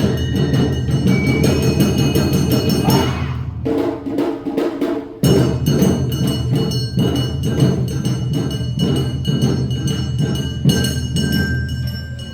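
Awa Odori festival band (narimono) playing its brisk two-beat dance music, with drums and a clanging gong in a steady beat and high flute and string lines over them. The music drops away about four seconds in and starts again abruptly about five seconds in.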